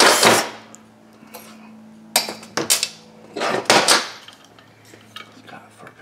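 A cordless drill's whir cuts off just after the start, then metal tools and a magnesium chainsaw crankcase half clatter and knock on a workbench in two short bursts, around two and about three and a half seconds in.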